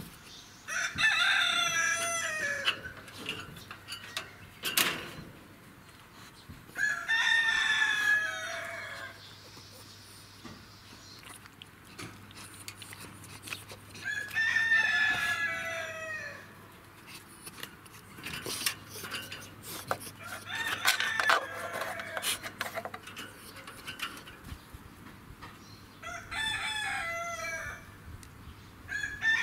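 A rooster crowing again and again, one long crow about every six seconds.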